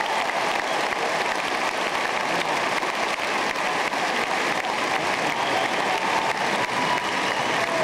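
Large arena crowd applauding steadily, a dense continuous clapping that holds at the same level throughout, for a show-jumping round that has just finished.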